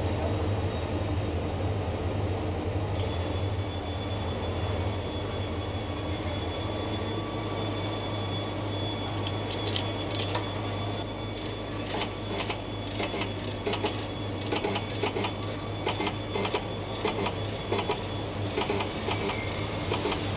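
Coin-operated palm-reading fortune-telling machine clicking rapidly and irregularly, starting about halfway through, over a steady low hum.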